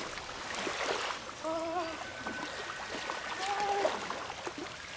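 Lake water splashing and swirling around a person's legs as he wades in up to his waist, with small irregular splashes throughout.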